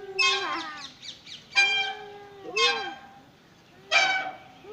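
A metal playground swing bench squeaking at its pivots with each swing: four high, drawn-out squeaks at a steady rhythm, a little over a second apart.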